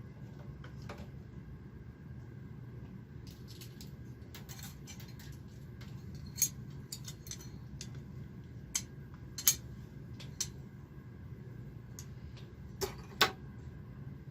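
Irregular light metallic clicks and clinks, a few of them louder, over a steady low hum: small metal parts of a knitting machine being handled.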